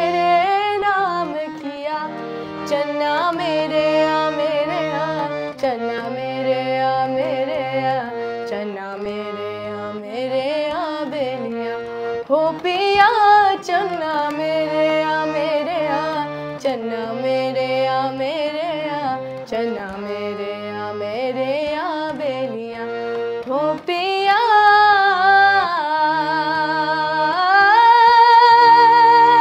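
A girl singing a devotional bhajan while playing a harmonium, her voice gliding over the instrument's steady reedy chords. She ends on a long, wavering held note that stops abruptly.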